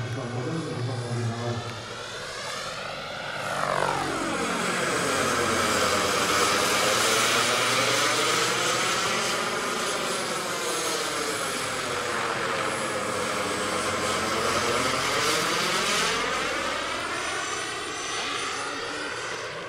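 Turbine-powered Vario scale SA-315B Lama model helicopter in flight overhead: a steady turbine whine with rotor noise. The tone falls sharply about three seconds in as it passes, then swells and dips in long sweeps, fading slightly near the end as it flies away.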